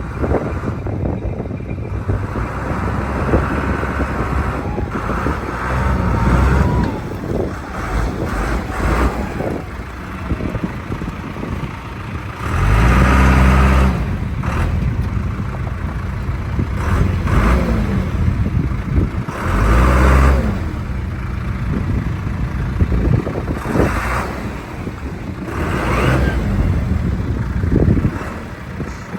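John Deere 310D backhoe loader's diesel engine running and revving up in surges, about three times, as the machine is worked, with occasional knocks and clanks from the machine.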